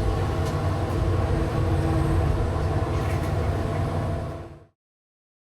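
Heavy diesel machinery running steadily with a deep rumble and a few light knocks, fading out to silence about four and a half seconds in.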